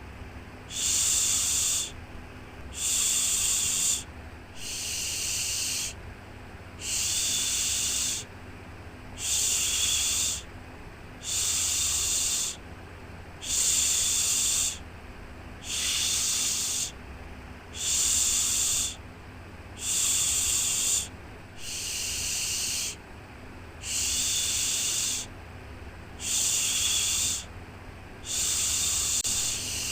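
A voice shushing 'shhh' in a steady rhythm, one long shush about every two seconds, each lasting a little over a second, as a baby-soothing sound. A faint low hum runs underneath.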